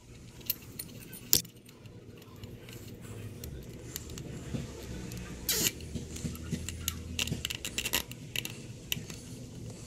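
Plastic zip tie being threaded and pulled tight around rubber hoses, its ratchet giving runs of quick clicks, mixed with small taps and rattles from handling the hoses and fittings. A faint low hum sits underneath.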